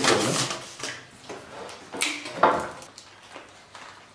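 Clear plastic takeout containers and lids being handled and pulled open, with sharp crinkling clatters at the start and again about two seconds in, then quieter handling.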